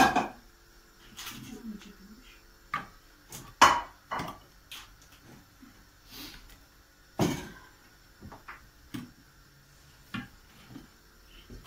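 Dry etimek bread rusks set one at a time into a round metal pan, each landing with a sharp knock or clatter on the metal, at an irregular pace.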